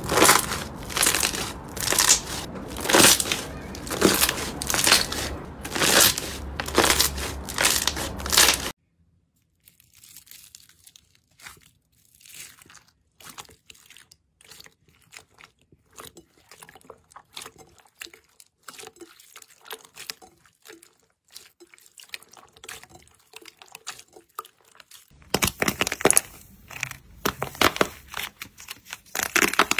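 Hands squeezing slime: loud, crackly squishes about once a second from a thick blue slime, stopping sharply about nine seconds in; then clear slime with foam beads giving only faint, soft squelches and pops; then, near the end, a dried clay crust on a slime cracking and crunching under the fingers.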